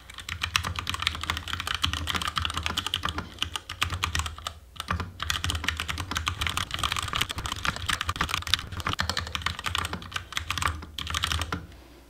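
Fast touch-typing, about 83 words a minute, on a Durgod Venus 60% mechanical keyboard with Gateron Yellow linear switches and PBT keycaps: a dense stream of key clacks with a couple of brief pauses, stopping shortly before the end.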